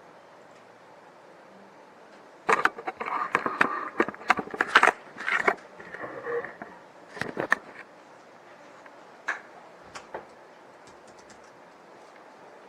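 Clicks, taps and scrapes of small hard parts being handled: a dense run of about five seconds starting a few seconds in, then a few scattered ticks, over a faint steady hiss.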